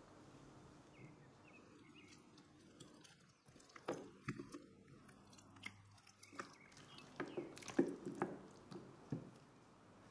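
A gloved hand mixing raw chicken pieces into a yogurt-and-spice marinade, kneading and squelching them in a bowl. Quiet at first, then uneven bursts of wet squelching from about four seconds in, thickest around eight seconds.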